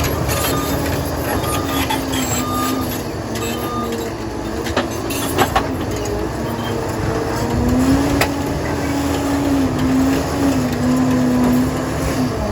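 Liebherr 746 crawler dozer's diesel engine running under load, with a wavering squeal from the tracks and a few metallic clanks. A reversing alarm beeps during the first few seconds.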